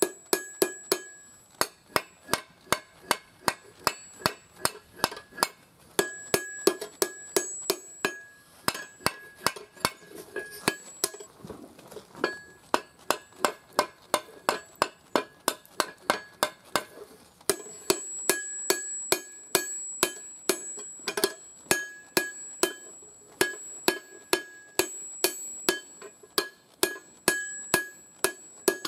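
Hand hammer striking red-hot steel on an anvil in a steady rhythm of about three blows a second, forging an axe head. Many of the blows ring with a clear metallic tone from the anvil, and there is a short break about twelve seconds in.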